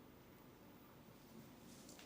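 Near silence: faint steady room tone, with a faint brief rustle near the end.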